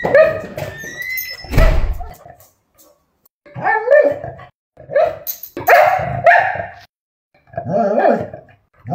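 English Springer Spaniel giving several drawn-out, whining barks, a few in a row about a second apart. Two heavy thumps come in the first two seconds.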